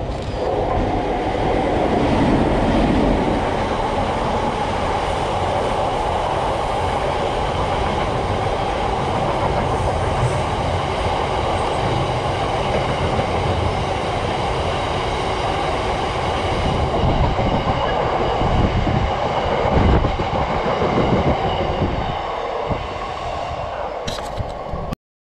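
A train running past on the line: a long, steady noise of wheels on rails that cuts off abruptly near the end.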